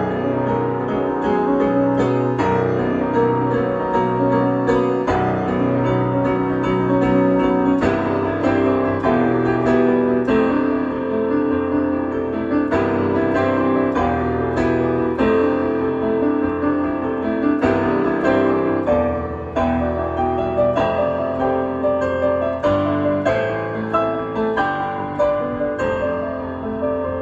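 Piano music: a steady flow of sustained notes and chords.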